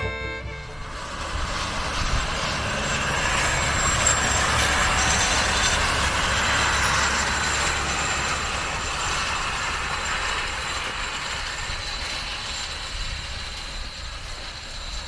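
Tractor pulling a straw rake across stubble: a steady mechanical rumble and rattle with thin high metallic squeals. It swells over the first few seconds and slowly eases off.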